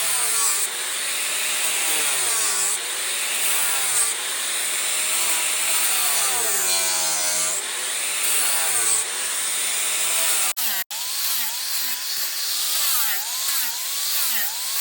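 Handheld rotary power carving tool cutting into wood. The motor's pitch dips and recovers over and over as the cutter bites and loads. The sound breaks off for a moment about eleven seconds in, then carries on in quicker wobbles.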